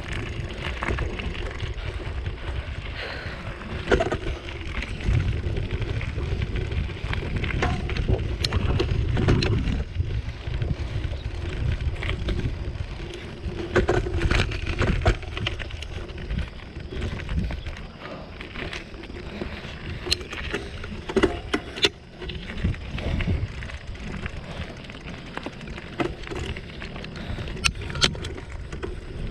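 Bicycle riding over gravel and rough dirt: tyres crunching and rumbling, with sharp knocks and rattles from the bike over bumps. Wind buffets the microphone throughout.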